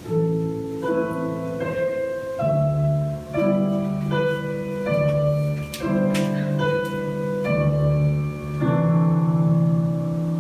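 Instrumental background music: a gentle melodic tune whose notes and chords change about once a second.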